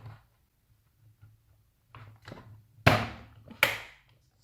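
Plastic playset pieces and Play-Doh pots knocked down on a tabletop: a couple of soft taps, then two sharp knocks a little under a second apart.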